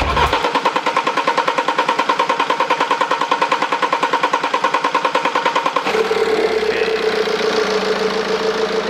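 BMW 5 Series GT diesel engine being cranked by the starter, about ten even pulses a second, for nearly six seconds before it catches and settles into a steady idle. This is the first start after the fuel system was cleaned of metal particles and re-primed.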